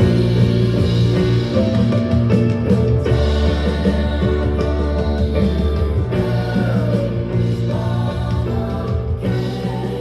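A song with a singer and band, with strong bass, played through a portable Bluetooth speaker for a sound test.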